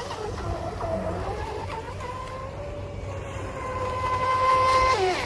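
Fast electric RC speedboat (Delta Force 35) with a TP Power 4050 2300 kV brushless motor running at speed across water, a steady high whine. Its pitch dips and wavers about half a second in, climbs back and holds, then drops sharply near the end.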